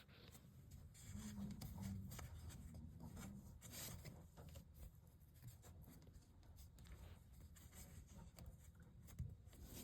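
Near silence: faint rubbing and handling noises over a low hum, a little louder between about one and four seconds in.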